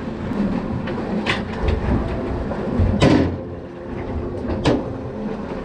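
A few knocks and thumps on a fishing boat while a hooked fish is fought and brought aboard, over a low steady rumble; the loudest thump comes about three seconds in.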